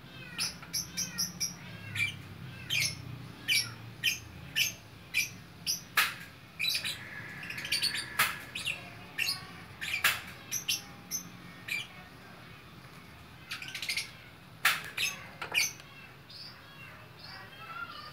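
Lovebirds calling busily in a rapid, irregular run of short, shrill chirps and squawks, with a brief lull about two-thirds of the way through.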